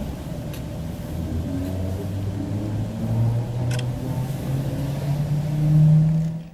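Electric train's traction motors heard from inside the passenger car: a low hum rising steadily in pitch as the train picks up speed, loudest near the end, then cut off suddenly.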